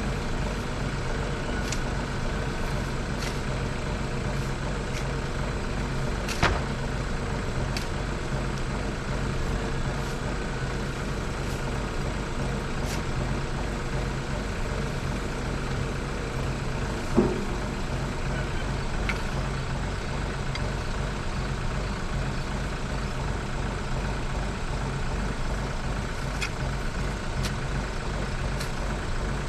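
Kioti tractor's diesel engine running at a steady speed, with scattered clicks and knocks over it, the loudest about six and seventeen seconds in.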